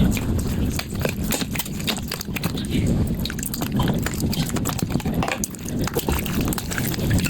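Slime being squished and stretched by hand, a quick, irregular run of wet, sticky clicks and pops.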